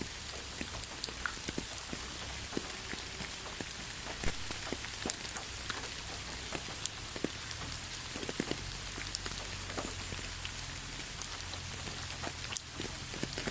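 Steady rain falling, with many separate drops striking a surface close by and one louder drop about twelve seconds in.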